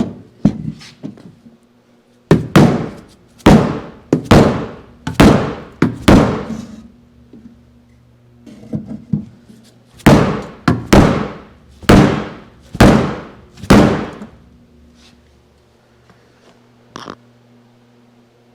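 Dead blow hammer striking a block of 2x4 held against the inside of a steel car door panel to drive a dent outward: two runs of heavy knocks about a second apart, each with a short metallic ring, with a pause between the runs.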